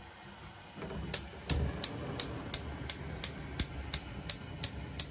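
Gas hob's electric spark igniter clicking, about a dozen sharp clicks roughly three a second, while the burner under a pot of pasta water is lit. A low rush, the gas flame catching, sets in about a second and a half in.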